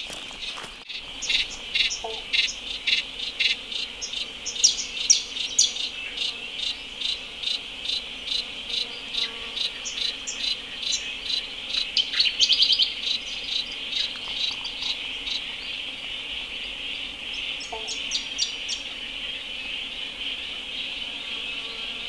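Bush ambience: a steady, high-pitched insect chorus with short high chirps repeating about twice a second through the first half, and a brief fast trill about twelve seconds in.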